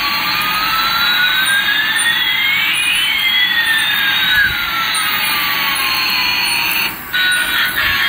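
Toy Airbus A380's electronic jet-engine sound effect from its built-in speaker: a steady hissing jet noise with one whine rising and another falling at the same time, cutting off suddenly about seven seconds in.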